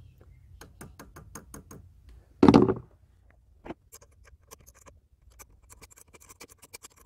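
Hands working on a car engine's fuel hoses and their fittings: a run of small clicks and scratches, with one loud short rustling bump about two and a half seconds in. The clicks grow quicker near the end as a pipe is refitted.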